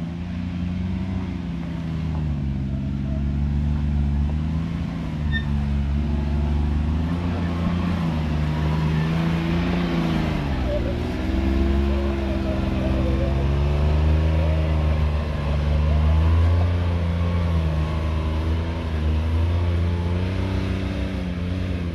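Side-by-side UTV engine working under load while it climbs a rock ledge, revving up and down repeatedly as the throttle is worked, loudest past the middle.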